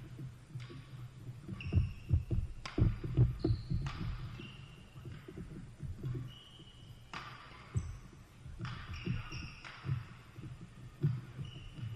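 Badminton doubles rally: sharp racket strikes on the shuttlecock about once a second, short high shoe squeaks on the court floor, and heavy footfall thuds.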